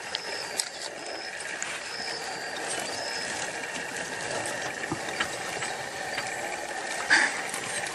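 Porcupine's quills rattling as it is pushed about, a steady dry clicking rattle with a sharper click about seven seconds in.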